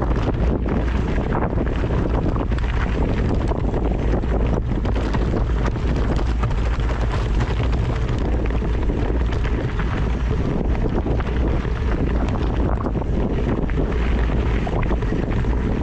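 Wind buffeting the microphone: a loud, steady rumble with a rushing hiss that runs on without a break.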